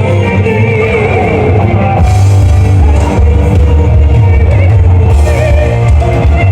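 Loud rock music: a wavering sung vocal over bass and drums, with the full band coming in louder about two seconds in.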